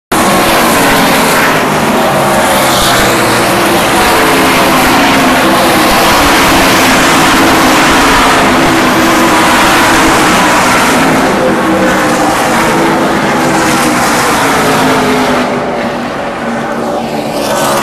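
NASCAR Camping World Truck Series race trucks' V8 engines running at speed down the frontstretch, a loud engine drone with several pitches gliding up and down as trucks pass. The sound eases off about fifteen seconds in.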